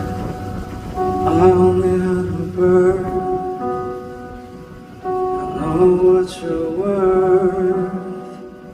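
Live music: the slow, gentle opening of a song, with sustained pitched notes, some of them held and wavering.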